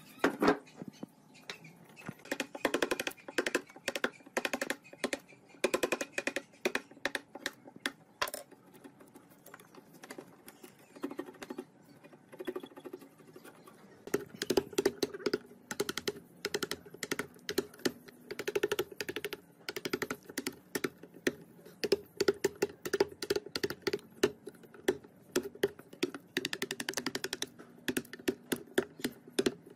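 Hand-held chisel picking and prying decayed wood out of a tree stump's crevices: a rapid, uneven run of small clicks and scrapes as bits of wood break off.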